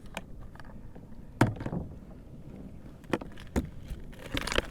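Scattered knocks and clatter of gear being handled against a kayak, with the loudest knock about a second and a half in and a brief rustle near the end.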